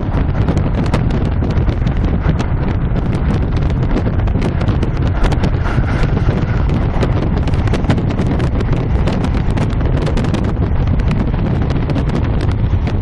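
Passenger train running at speed, heard from inside the carriage on a phone's microphone: a steady low rumble with many irregular clicks and rattles from the wheels and carriage.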